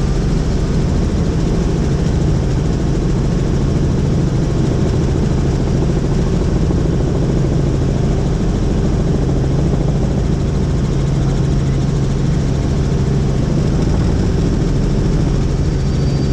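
Helicopter in flight: a steady, loud drone of engine and rotor with a constant low hum that does not change.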